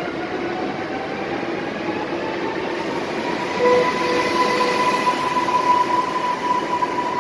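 Polregio ED78 electric multiple unit pulling out along the platform. Its traction motor whine rises in pitch over the first few seconds as it accelerates, then holds steady over the rolling noise of the wheels.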